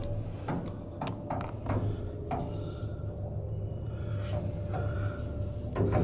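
Vintage passenger elevator car in motion: a steady hum with a faint steady whine, and a string of short clicks and knocks, most of them in the first half.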